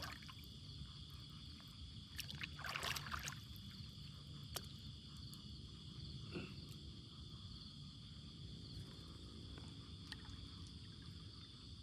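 Insects chirring steadily in a high, even band over a low rumbling background, with a few faint clicks and a short rustle about three seconds in.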